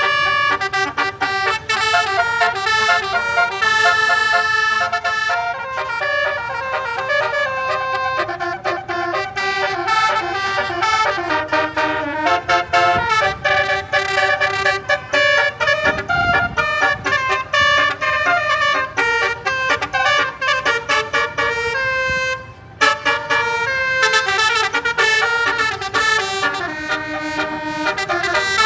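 Basuri multi-tone vehicle horn sounding a continuous tune of stepping notes, with a brief gap about three-quarters of the way through.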